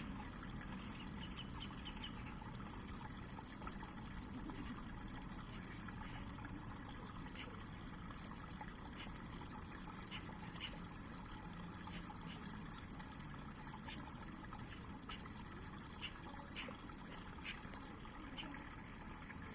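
River water flowing and trickling steadily over stones, with small splashes and plinks scattered through it.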